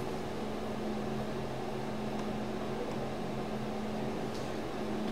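Steady low hum over a light hiss: room tone, with a few faint ticks.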